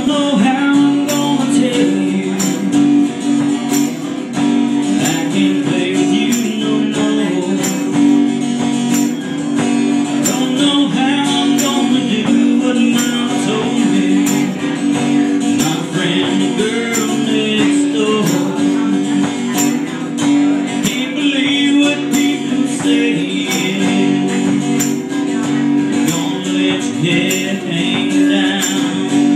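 Two acoustic guitars played live together, strummed and picked in a steady song, with a regular high tick on the beat about once a second.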